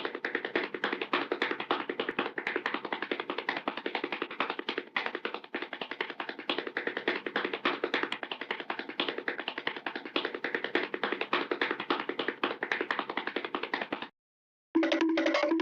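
Cartoon running sound effect: a very fast, even run of light tapping footsteps that stops abruptly about fourteen seconds in. Near the end a short pitched, tone-like effect follows.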